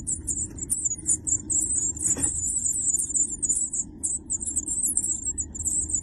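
Songbird nestlings begging for food: a dense, rapid stream of thin, very high cheeps. There is one soft knock about two seconds in.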